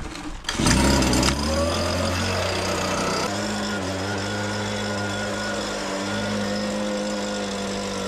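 Stihl handheld leaf blower's two-stroke engine catching on a pull-start about half a second in. It revs, falls back in pitch over the next second and then runs steadily.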